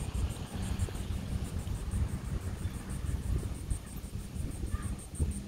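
Insects chirping in a fast, even pulse, about five times a second, over a steady low rumble.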